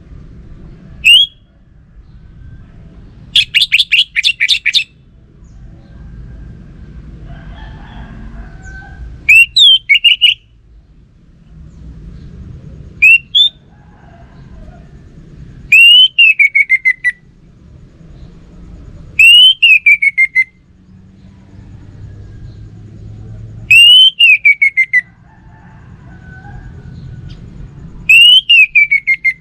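Orange-headed thrush (anis merah) singing loud whistled phrases. Each phrase is a quick rising note that slides down in a rapid stutter, and after a fast trill early on the phrases come every three to four seconds, over a faint low rumble.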